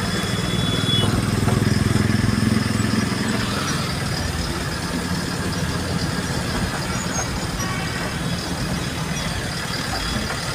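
Truck's diesel engine running on the move, heard from inside the cab along with road noise. The engine note swells briefly about one to three seconds in, then settles to a steady drone.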